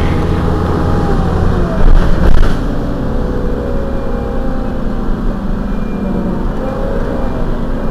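Heuliez GX 127 city bus's diesel engine idling with a steady low drone and a few faint whining tones. A brief loud burst of noise about two seconds in.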